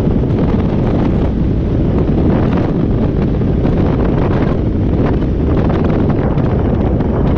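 Loud, steady wind buffeting on a microphone mounted outside a Robinson R22 helicopter, with the helicopter's rotor and engine noise beneath it, as the helicopter descends in a practice autorotation.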